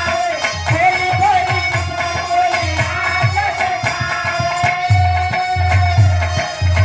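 Birha folk music: a hand drum beats steadily under a held, wavering melody line.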